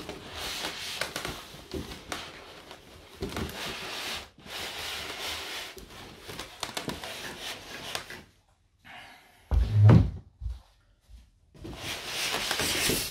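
A foam insert scraping and rubbing against a cardboard box sleeve as it is worked out, in several long scrapes. About nine and a half seconds in there is a short, loud, low thump.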